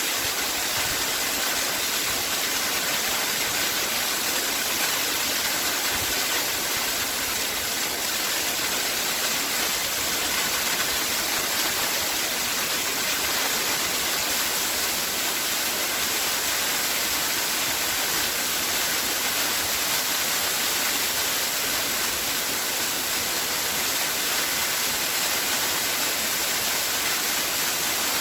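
Waterfall: water falling and splashing in a steady, even rush, heavy in hiss with little low rumble.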